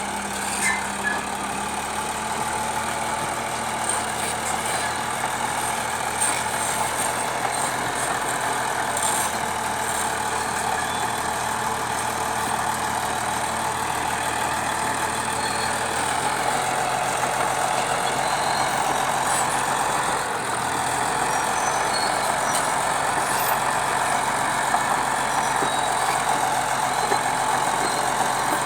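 Bulldozer's diesel engine running steadily under work, a continuous mechanical drone with small higher clicks and rattles on top.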